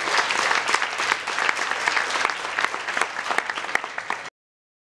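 Audience applauding: a dense patter of many hands clapping in a large hall, cut off suddenly near the end.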